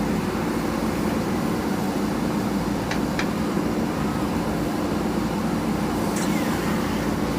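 Heavy diesel engine of earthmoving machinery running steadily at an even pitch, with a few faint high clicks and chirps about three and six seconds in.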